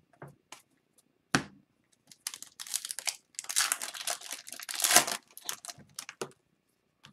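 Foil wrapper of a 2021-22 Upper Deck Series 2 hockey card pack being torn open and crinkled in the hands, after a single sharp tap about a second in.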